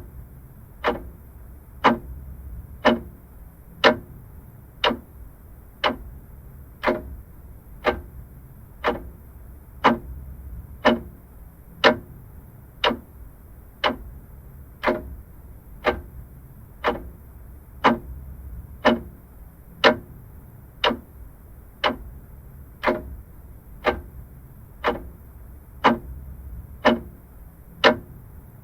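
Vintage mechanical clock ticking steadily, about one sharp tick a second.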